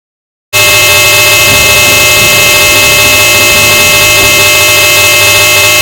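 Extremely loud, heavily distorted 'earrape' sound effect: a steady, clipped buzzing drone of many held tones over harsh noise, starting suddenly about half a second in.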